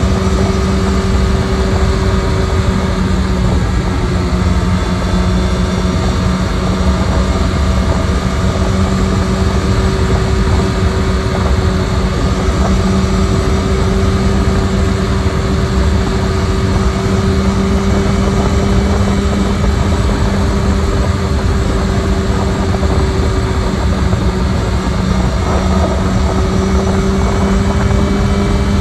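Honda CB1000R's inline-four engine running steadily at highway cruising speed, its note holding almost level and rising slightly near the end. Heavy wind rush on the handlebar-mounted microphone runs underneath.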